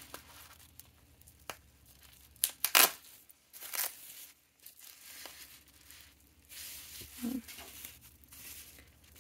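Sticky tape being peeled and ripped off bubble wrap, with the plastic wrap crinkling and rustling as a bundle of ink sample vials is unwrapped by hand. The loudest rips come about two and a half to three seconds in.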